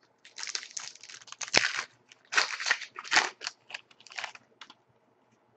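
Wrapper of an Upper Deck SPx hockey card pack being torn open and crinkled by hand: a run of crackling rustles that stops about a second before the end.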